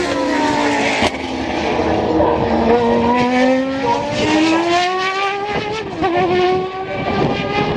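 Toyota TS010's V10 racing engine at high revs: its pitch falls over the first two seconds, then climbs steadily under acceleration, dipping briefly about six seconds in, as at a gear change, before rising again. A sharp click comes about a second in.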